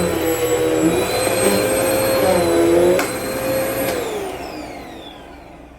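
Vacmaster UC0101 bagless upright vacuum running with a steady motor whine, then switched off about four seconds in, the motor winding down with a falling whine.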